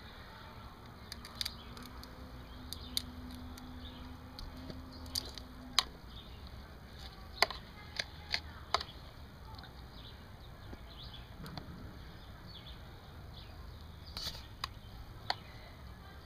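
Faint, scattered sharp clicks and crackles of boiled crayfish shell being cracked and peeled apart by hand, with several coming close together about halfway through.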